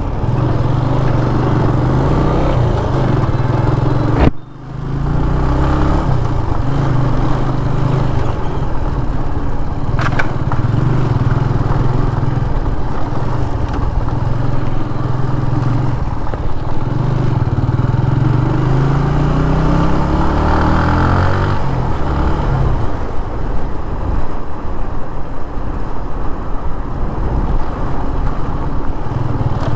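Single-cylinder engine and stock exhaust of a 2010 TVS Apache RTR 180 motorcycle under way, the engine note rising and falling as the rider accelerates and changes gear, with a rising run of revs about 18 to 21 seconds in. The sound drops out briefly about four seconds in.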